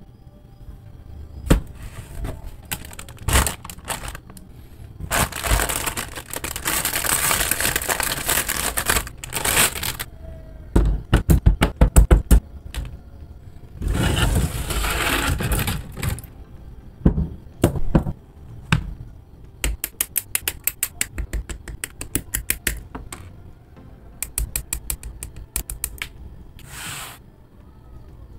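Plastic model kit handling: the paper instruction manual rustling, hard plastic runners clacking and rattling on the desk, and runs of quick sharp clicks as small plastic parts are snapped together.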